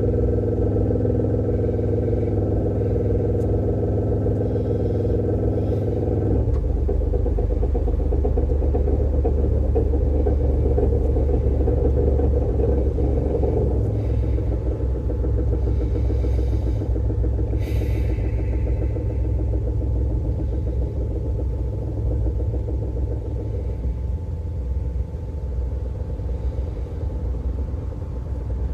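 Toyota Pixis Mega kei car with its 660 cc turbocharged three-cylinder running: steady engine tones for the first six or so seconds, then they give way to a deeper, even rumble. A short sharp click or tick comes about eighteen seconds in.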